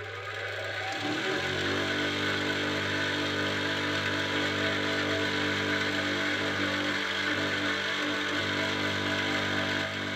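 Electric bench grinder, freshly mounted on a wall shelf, spinning up to speed in the first second or so after being switched on, then running steadily with an even motor hum and a higher steady tone on a test run.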